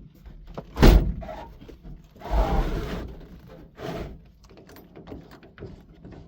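A door shutting with a heavy thunk about a second in, followed by a rustling scrape lasting about a second and a softer knock.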